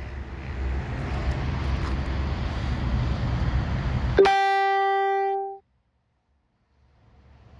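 A steady low engine rumble that cuts off suddenly about four seconds in, replaced by a single plucked guitar note that rings for just over a second. After a moment of dead silence the rumble fades back in near the end.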